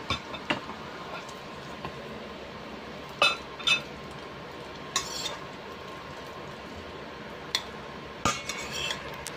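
Utensils clinking and scraping against a stainless steel pan as fried maling (luncheon meat) strips are lifted out into a bowl: a handful of separate clinks, a few of them ringing, with a cluster near the end, over a steady background hiss.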